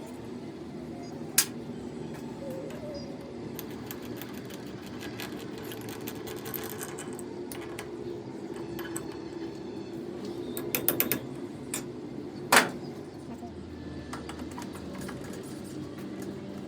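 Workshop machinery running with a steady low hum, with a few sharp metallic knocks: one about a second and a half in, a quick cluster past the middle, and the loudest a moment later.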